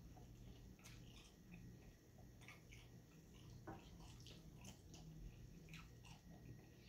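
Near silence, with faint, scattered crackles and clicks of fingers handling a crunchy hard taco shell and its lettuce and tomato filling on a plate.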